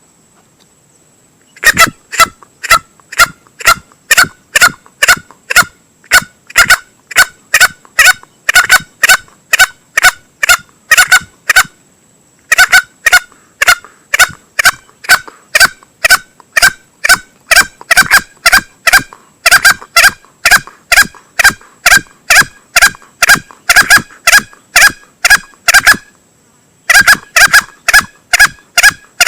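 Male green junglefowl lure call: a fast, even series of sharp clucking calls, about three a second, in long runs broken by two short pauses. It is played to draw wild junglefowl in.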